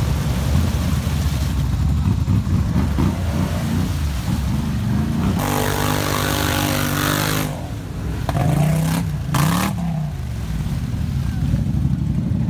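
ATV or UTV engine running, revving up for about two seconds near the middle, then rising and falling in pitch twice.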